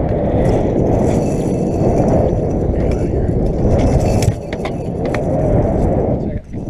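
Wind buffeting the microphone: a loud, steady rumble. A few sharp clicks and knocks come in around four to five seconds in.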